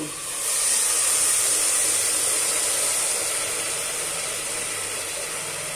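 Water poured into hot ghee, melted sugar and roasted broken wheat in a pressure cooker, sizzling and hissing with steam. The hiss starts about half a second in and holds steady, slowly easing off.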